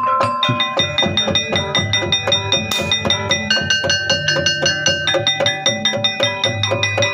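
Jaranan (jaran kepang) accompaniment music: mallet-struck metal notes and drums playing a fast, steady beat.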